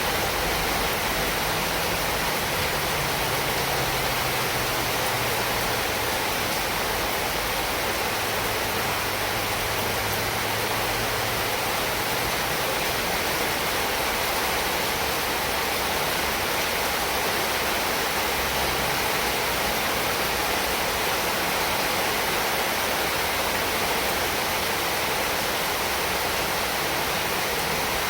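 Heavy rain falling in a steady, even hiss with no breaks or individual drops standing out.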